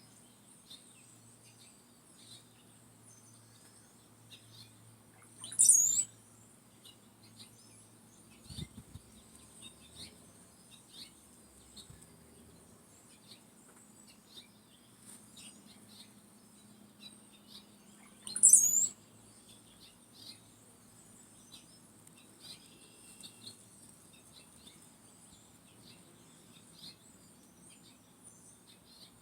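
Wild birds singing: one bird gives a loud, short, high-pitched phrase twice, about 6 seconds and 18 seconds in, while other birds chirp faintly and briefly throughout over a steady faint high hiss.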